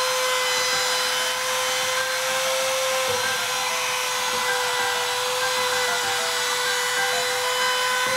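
Handheld trim router fitted with a quarter-inch roundover bit, running at full speed and rounding over the edge of a wooden bed slat: a steady motor whine with cutting noise.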